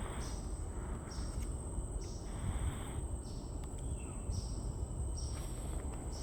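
Outdoor nature ambience: a steady high-pitched insect drone with short, high chirps repeating about once a second, over a low rumble.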